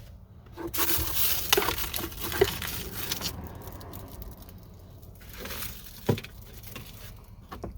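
Items being rummaged and taken out of a car's glove box: rustling, with small clicks and clatters in the first few seconds, then quieter handling and a single knock about six seconds in.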